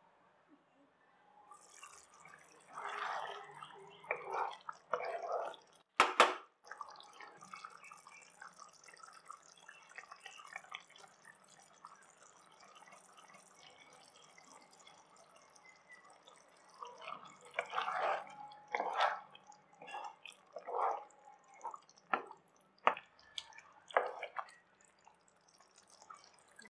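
Spicy fish curry bubbling and plopping as it simmers in the pan, over a steady faint hiss. There is a sharp clink about six seconds in, and a run of louder knocks between about seventeen and twenty-four seconds.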